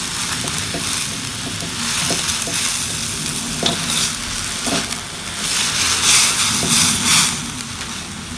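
Rice vermicelli stir-frying in a wok: a steady sizzle, with a silicone spatula scraping the pan and turning the noodles over and a few light clicks. The sizzle swells louder for a couple of seconds past the middle as the noodles are tossed.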